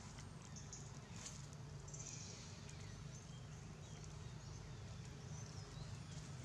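Faint rustling and light patter of macaques moving over dry leaf litter, under a quiet outdoor background hum, with a few short high-pitched chirps about one and two seconds in.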